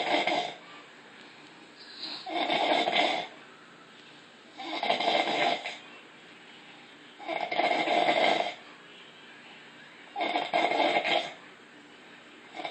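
A woman snoring in a steady rhythm: loud rasping snores about a second long, one roughly every two and a half seconds, with quiet breathing gaps between them.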